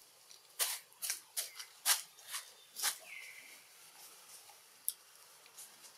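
Long-tailed macaques: a run of about six short, sharp smacking sounds in the first three seconds, then a brief high squeak.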